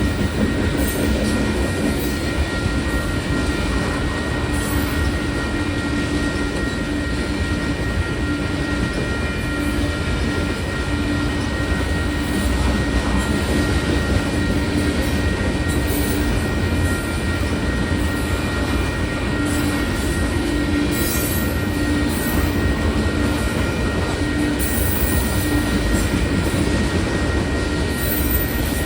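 Freight cars of a grain train rolling steadily through a grade crossing, wheels rumbling on the rails with some squeal, while the crossing bell rings steadily over it.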